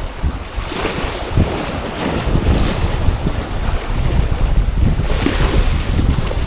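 Strong wind buffeting the microphone by the sea, with surges of wave and wind noise about a second in and again about five seconds in.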